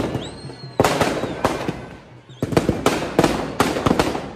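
Firecrackers packed in a burning Ravan effigy going off in rapid, irregular bangs, with a short lull about two seconds in before a dense run of bangs. A brief whistle comes near the start.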